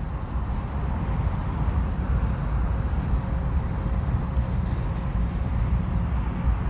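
Freight cars of a mixed freight train rolling past: a steady low rumble of steel wheels on the rails, with a faint steady whine above it.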